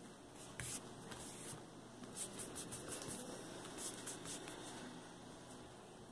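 Fingers rubbing and pressing modeling paste onto a sculpted figure's head: a series of faint, short, scratchy rubbing strokes.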